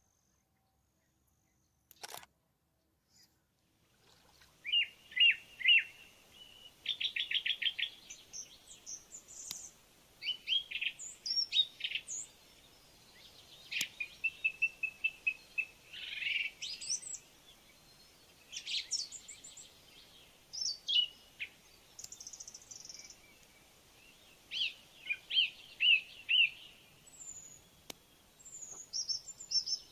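Songbirds singing in the open: a series of short chirps and quick trilled phrases, repeating with short pauses, beginning about four seconds in after a near-silent start broken by a single click.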